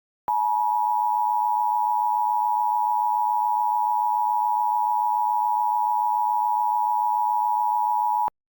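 Emergency Alert System attention signal: the 853 and 960 Hz two-tone alarm, a steady tone held for about eight seconds that cuts off abruptly near the end. It marks the start of an emergency alert.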